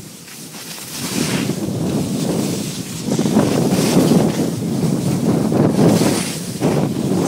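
Wind buffeting the microphone of a skier moving downhill, with skis scraping over the snow; quieter at first and louder from about three seconds in as speed picks up.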